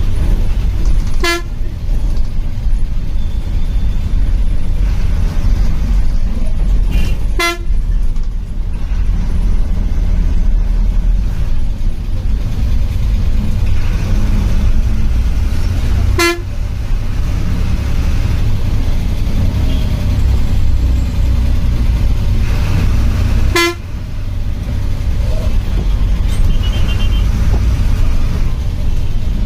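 Bus engine and road noise, a steady low rumble heard from inside the bus. A horn gives four short toots spread through it, several seconds apart.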